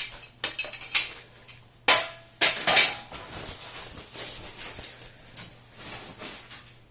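Hard parts knocking and clanking as they are handled and set down, five or so sharp knocks in the first three seconds, then quieter rustling and light taps.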